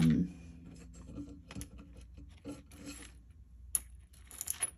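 Heavy metal curb chain being handled: links sliding and rubbing against each other, with scattered small clicks and a quick run of sharper clinks near the end.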